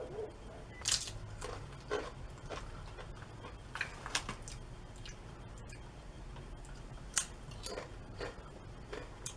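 Close-up chewing and crunching of thick salt and vinegar veggie chips: irregular crisp crunches, a few in quick succession, then pauses between bites.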